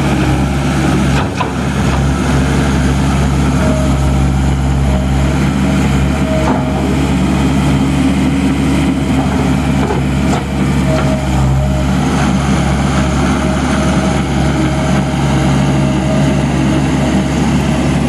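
John Deere 317 skid steer's diesel engine running steadily and loudly as the machine drives and turns on gravel.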